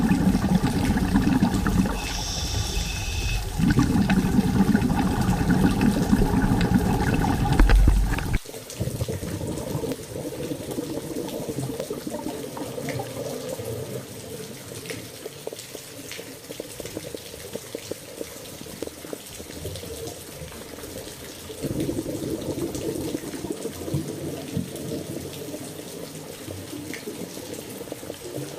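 Running, splashing water, loud and full at first, then dropping suddenly about eight seconds in to a quieter, steady wash of water.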